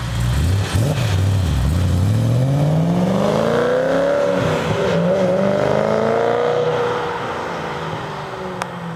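BMW E93 M3's 4.0-litre V8 through an Eisenmann Race exhaust, accelerating hard from a standstill. The revs climb steadily, dip once about four seconds in at an upshift, climb again, then fall away and fade as the car drives off.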